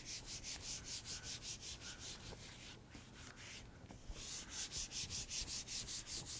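Handheld eraser scrubbing dry-erase marker off a whiteboard: quick back-and-forth rubbing strokes, about four a second, with a short pause about three seconds in.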